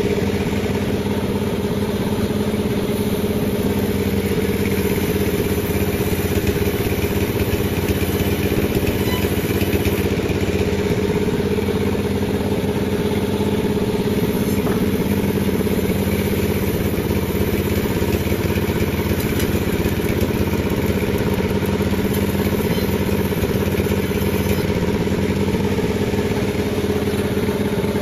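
Panda36 sawmill running steadily with a constant, unchanging hum.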